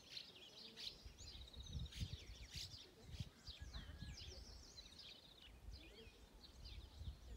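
Faint chorus of small birds chirping and twittering, with a couple of short rapid trills, over an uneven low rumble.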